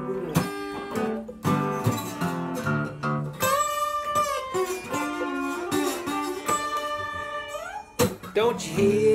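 Blues guitar duet: an acoustic guitar picks the rhythm while an electric guitar plays a lead break. The lead's high notes are held and bent from about three and a half seconds in, ending with a rising slide just before eight seconds.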